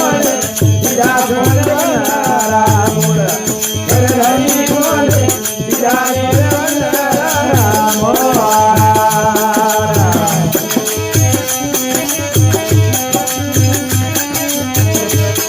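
Rajasthani Marwari folk bhajan music: a wavering melody over an even drum beat with a shaken rattle. The melody stops about ten seconds in, and the drum and accompaniment carry on alone.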